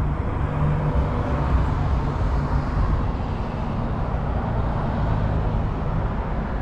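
A vehicle running: steady engine and road noise, heaviest in the low end, with a faint steady hum underneath.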